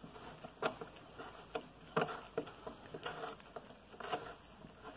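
Ratchet on an extension clicking faintly as the battery tray bolts are tightened, short sharp clicks about twice a second.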